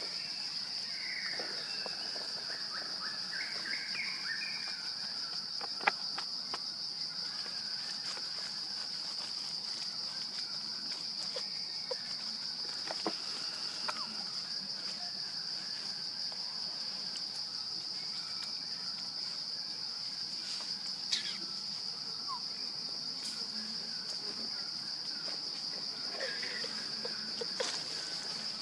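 Steady, high-pitched drone of insects calling, with a few short sharp clicks and faint chirps scattered through it.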